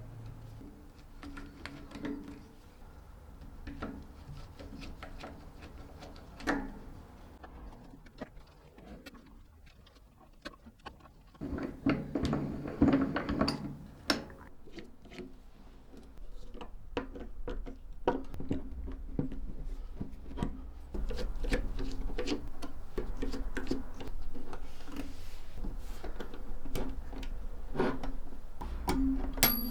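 Hand work on a Felix M mechanical arithmometer's small tin and aluminium parts: scattered light clicks and taps of metal parts and tools, busiest about halfway through.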